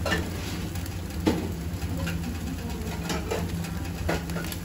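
Whole fish grilling on the wire racks of a fish grill, skin and fat crackling with irregular small pops, a few louder, over a steady low mechanical hum.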